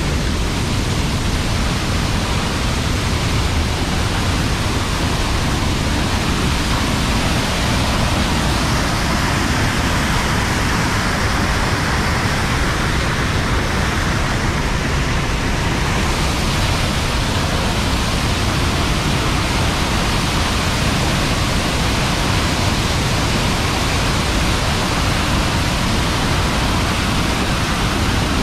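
Fergusson Falls, a waterfall in heavy flow, rushing loudly and steadily as falling water pounds onto rocks.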